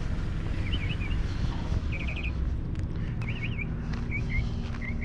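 A small songbird chirping in short twittering phrases, repeated about every second or so, over a steady low rumble.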